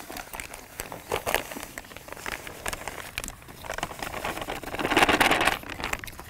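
A bag of dry groundbait crinkling and rustling as it is handled and tipped, then the groundbait pouring out into a plastic bucket with a rushing hiss for about a second, a little after halfway through.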